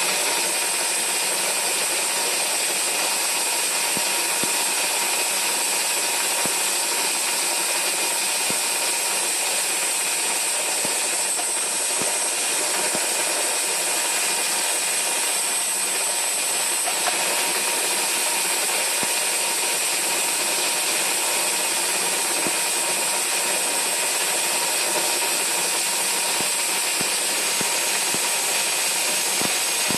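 Star SR20 sliding-head CNC lathe running and cutting a brass banjo fitting dry at slowed speeds: a steady machine whir with several steady high tones and a few faint ticks.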